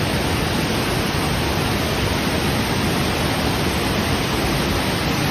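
A waterfall in flash flood, its torrent rushing as a loud, steady wash of water noise.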